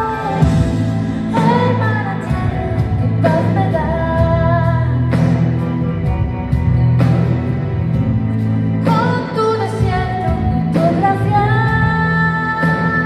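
Live pop concert: a female lead singer sings long held notes over her full band, with a heavy bass line, heard from the audience in a large arena.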